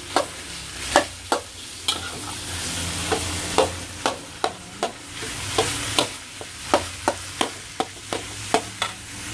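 Metal spatula knocking and scraping against a wok, about two knocks a second, as blocks of tofu are crushed and stirred with meatballs. Oil sizzles steadily underneath.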